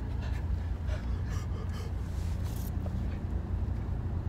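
Steady low rumble of a car's engine heard from inside the cabin, with a few short breathy gasps of stifled laughter over it.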